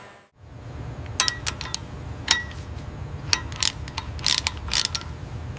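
Hand wrench ratcheting on a metal fitting: a string of irregular sharp metallic clicks and clinks, some ringing briefly, over a steady low hum that comes in just after the start.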